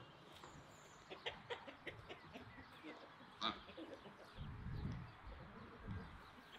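Chickens clucking softly, with scattered light ticks and one sharp click about halfway through, and low rumbles in the last two seconds.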